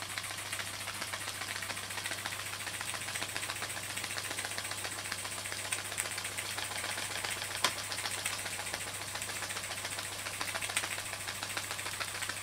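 Märklin toy steam donkey engine running at a steady speed: a rapid, even ticking of exhaust beats and valve clicks from its small cylinder, with an occasional louder click. It runs smoothly, its piston freshly packed with graphited yarn.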